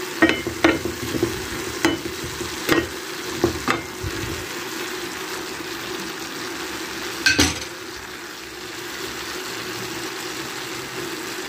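Chopped onion, carrot and tomato sizzling steadily in a frying pan, with a metal spoon stirring and clicking against the pan during the first few seconds. A single sharp knock about seven seconds in.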